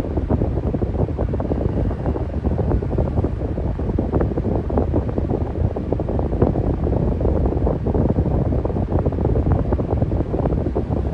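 Electric fan running steadily: a continuous low rush of air with a constant flutter, like air buffeting the microphone.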